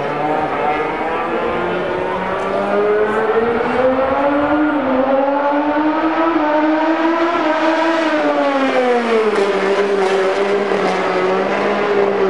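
A car and a MotoGP racing motorcycle pass at low speed on the circuit. One steady engine note climbs gradually, then drops about eight seconds in as they go by.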